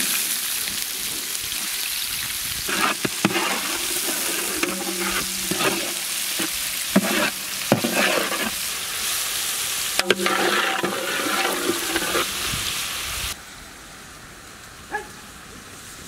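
Chopped onions sizzling loudly in hot oil in a large iron pan, with sharp clicks and scrapes as they are stirred. A little past three-quarters of the way in, the sizzle drops to a quieter hiss.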